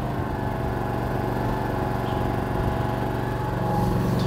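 Yamaha-powered Atima AY3000i inverter generator's four-stroke engine running steadily just after being pull-started, getting louder about three and a half seconds in.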